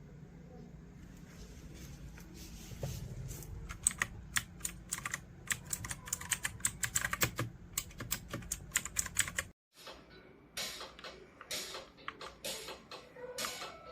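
Typing on a MetaMinor META68 65% mechanical keyboard: a fast run of keystroke clicks that cuts off abruptly about nine and a half seconds in, then resumes with fewer, more spaced-out keystrokes.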